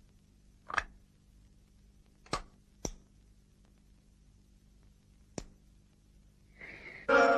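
A few sharp, widely spaced clicks, a cartoon sound effect for a cigarette lighter being flicked to light cigarettes. Just before the end, loud music comes in on a held chord.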